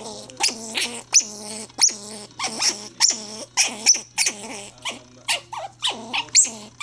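A dog 'talking back': a rapid run of short, pitched whining and grumbling calls, about two or three a second.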